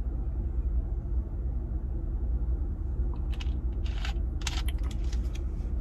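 Steady low rumble of an idling engine heard inside a truck's cabin. From about three seconds in come a string of short plastic clicks and crinkles as a plastic soda bottle's cap is twisted back on.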